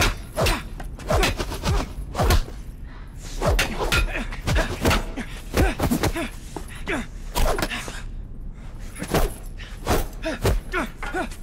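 Staff-fight sound effects: a quick string of more than a dozen thuds and blows, mixed with short falling grunts, with a brief lull about two-thirds of the way through.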